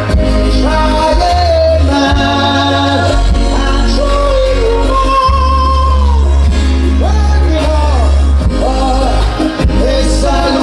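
A singer performing live, holding and bending melodic notes over a loud backing track with heavy bass.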